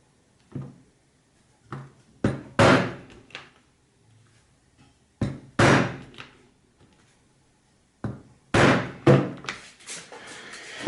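Hammer striking a multi-tooth leather punch (pricking iron) to punch stitching holes through leather: a series of sharp knocks at irregular intervals, a few of them loud.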